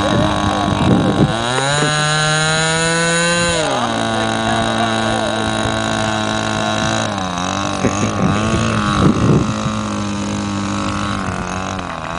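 Small model-airplane engine on a radio-controlled lawn-mower-shaped plane running. About a second and a half in it revs up to a high steady pitch. A couple of seconds later it drops back and runs steadily at a lower throttle, easing down a little more later on.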